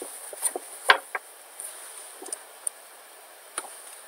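A handful of scattered, separate clicks from a computer keyboard and mouse, the sharpest about a second in, over a faint steady high hiss.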